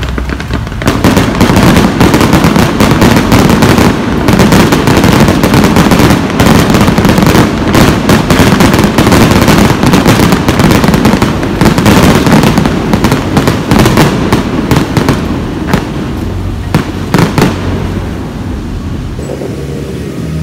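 Fireworks display: a dense barrage of crackling and popping aerial shells, starting about a second in, thinning out in the second half, with a few separate bangs near the end.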